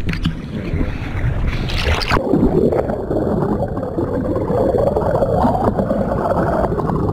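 Sea water splashing and wind at the surface. About two seconds in, the sound turns suddenly muffled as the microphone goes under water: a dull, low underwater churning with no high end.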